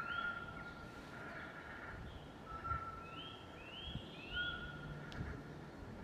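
Birds calling: three quick rising whistled notes a little past the middle, over longer held whistled tones, against a steady background hiss.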